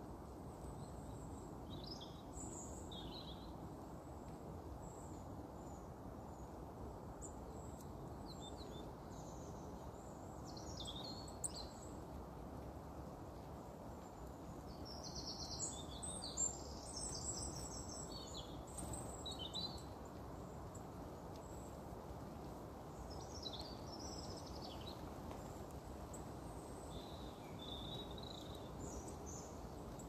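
Small songbirds chirping and singing in scattered short phrases, busiest about halfway through, over a steady low outdoor rumble.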